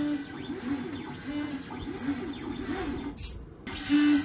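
Stepper motors of an iKier K1 Pro Max laser engraver's gantry whining as the laser head traces the outline of the job over the workpiece. The pitch rises and falls with each stroke as the head speeds up and slows down, with a brief break about three seconds in.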